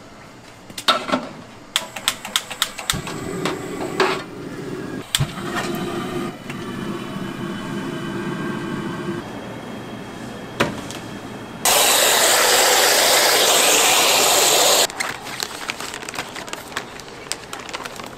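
Cooking oil pouring from a square tin into a wide cast-iron frying cauldron, with clicks and knocks of metal, followed by a loud steady hiss lasting about three seconds.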